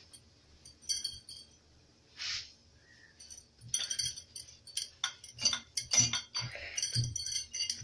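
Glass bangles clinking on the wrists as hands roll and press stiff puri dough into a log on a round rolling board, with soft knocks of the dough against the board. The clicks are sparse at first and grow busy and rapid from about halfway through.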